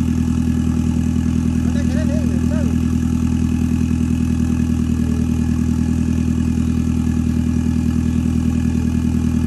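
Off-road 4x4 truck engine idling steadily with an even, rapid pulse.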